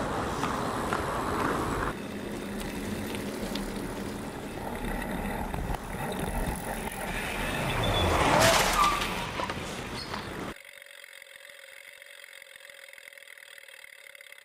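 Outdoor background noise with a vehicle passing, building to its loudest about eight seconds in and then fading. A little over ten seconds in, the sound drops abruptly to a thinner, quieter hum.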